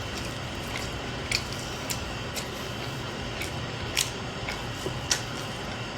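Scattered sharp clicks and taps of utensils against a takeout food container while eating, about eight over the few seconds, over a steady low hiss; the loudest click comes about four seconds in.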